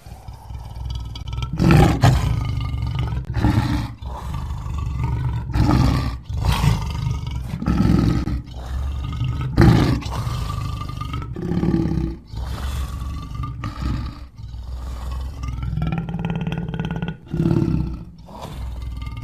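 Lion roaring: a string of deep calls, one about every one to two seconds, starting suddenly.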